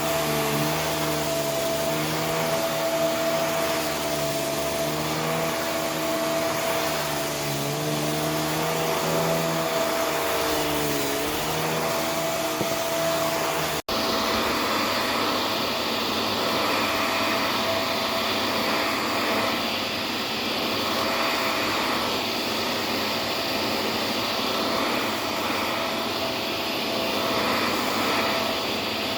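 Vacuum cleaner running steadily, its motor pitch wavering slightly as it is pushed back and forth over a surface. About halfway through the sound cuts out for an instant and comes back with more hiss and less motor tone, as it moves onto a different surface.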